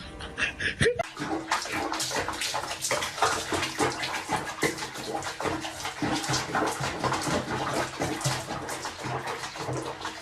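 Water splashing, in a quick, irregular run of splashes.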